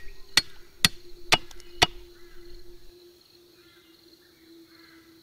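Chopping: a blade strikes a stick on a wooden chopping block five times in a steady rhythm, about two sharp strikes a second. The strikes stop about two seconds in, leaving a faint steady background.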